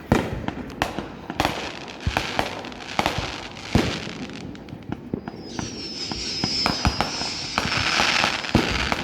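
Fireworks going off: a run of sharp bangs and crackling. From about halfway, a high whistle slowly falls in pitch over several seconds.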